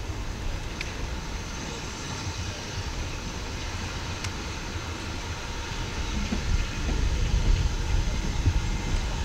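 Steam locomotive approaching the station: a low rumble that grows louder over the last few seconds.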